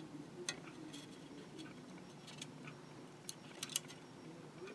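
Faint, scattered small clicks and ticks of a wire lead and circuit board being handled by hand in a benchtop PCB clamp holder, a few spaced out, then several close together near the end, over a low steady background hum.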